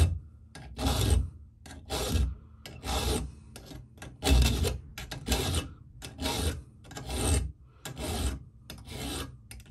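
Flat file rasping across a saw chain's depth gauge (raker), rounding off its front corner, in about ten separate strokes roughly one a second.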